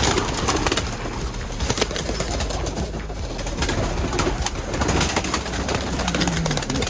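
A flock of birds calling, with many scattered clicks and scuffles, and one low call about six seconds in.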